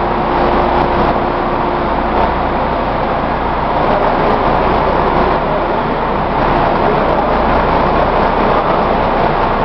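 Industrial plastic-crate washing machine running, giving a loud, steady noise with a low hum underneath.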